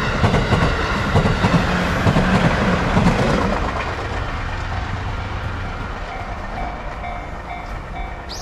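Electric commuter train passing close by, its wheels clattering over the rail joints, dying away after about four seconds. The level-crossing warning bell keeps ringing in a repeated ding, about two a second, which stands out once the train has gone.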